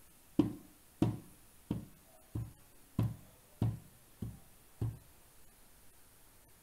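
Heavy stomping footsteps sound effect for a lumbering monster: eight slow, evenly spaced thuds, about one every two-thirds of a second, stopping about five seconds in.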